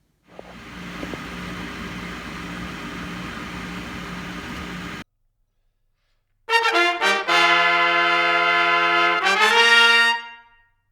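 A short brass fanfare for trumpets and trombones: a few quick notes, then a held chord that swells and dies away. It is preceded by about five seconds of a steady machine hum with hiss, which stops abruptly.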